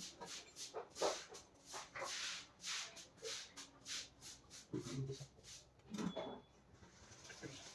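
Hands working the small parts of a computer cooling fan: a string of short clicks and rustles, two or three a second, with a couple of soft thumps about five and six seconds in.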